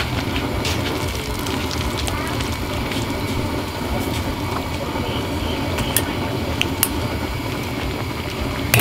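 Steady low rumble of a cooking fire under a wok of simmering broth, with scattered small crackles and clicks as boiled pig intestines are lifted out with a ladle and chopsticks.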